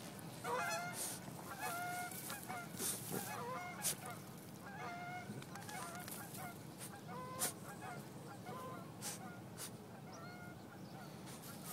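French bulldog digging fast at a gopher hole, with sharp scratches of claws in dirt, among repeated short, high, wavering calls.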